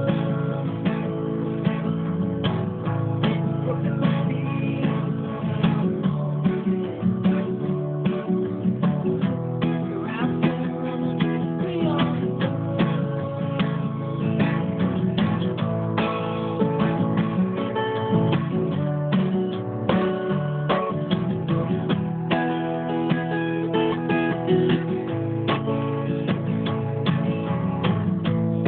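Martin D-35 acoustic guitar playing an instrumental break, chords strummed with picked single notes ringing over them.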